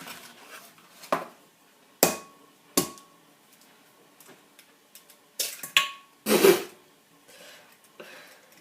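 An egg being knocked against the rim of a bowl to crack it: sharp taps a second or so apart, several leaving a brief ring from the bowl, with a louder cluster of knocks and a crunch of shell about six seconds in.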